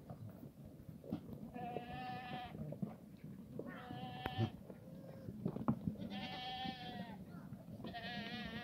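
Black goats bleating: four quavering bleats, each about a second long, roughly two seconds apart. The last starts near the end.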